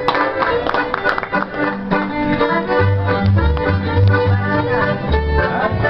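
Piano accordion playing a lively tune, its low bass notes stepping back and forth from about three seconds in. Hands clap along near the start.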